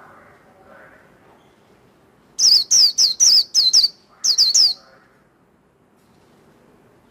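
White-eye (vành khuyên) singing a burst of sharp, high whistled notes, each falling in pitch. There are about six in quick succession, a brief pause, then three more.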